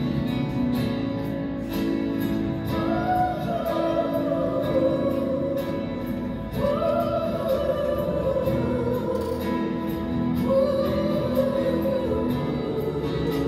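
A female singer performing a slow ballad over steady instrumental accompaniment, singing three long held phrases that each start high and sink.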